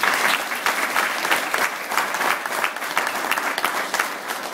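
An audience applauding. The many hand claps start loudest at the end of a song and ease off slowly.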